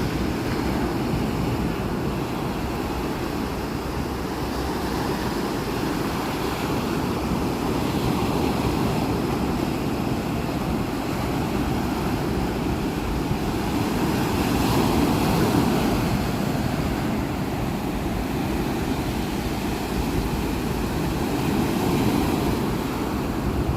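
Sea waves washing onto the shore, a steady surf noise that swells gently every several seconds, with wind rumbling on the microphone.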